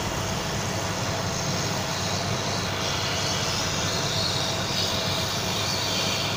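Handheld hot-air heat gun running steadily, its fan and blowing air making a constant whir with a faint steady whine. It is heating the phone's front glass to soften the display adhesive.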